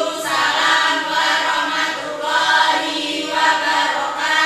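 A class of students replying in unison to a greeting with a drawn-out, chant-like 'Wa'alaikumsalam warahmatullahi wabarakatuh'.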